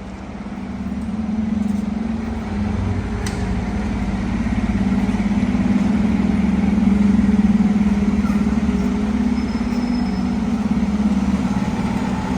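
Fire apparatus engine running steadily, a low hum that builds over the first two seconds and then holds even.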